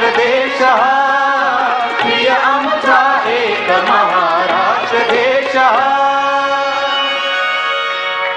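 A young girl singing a Marathi film song live with harmonium and tabla accompaniment, her melody full of quick ornamented turns, then settling into a long held note near the end.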